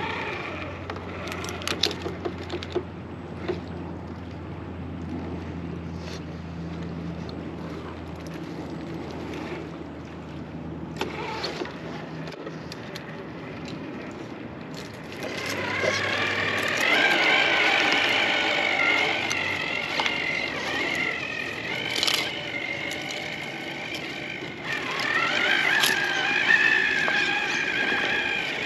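RC rock crawler's electric motor and gear drive whining, several wavering pitches that come in about halfway and shift with the throttle, with scattered sharp knocks of the tyres and chassis on rock.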